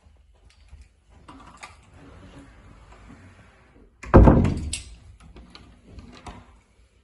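An interior oak door being handled and opened: a soft rustle, then one loud thump against the door about four seconds in, followed by a few sharp clicks.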